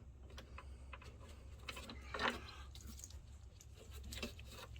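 Faint handling noises, small clicks and rubbing, as a wire is worked into place inside a projector's chassis, with one slightly louder scrape about two seconds in, over a steady low hum.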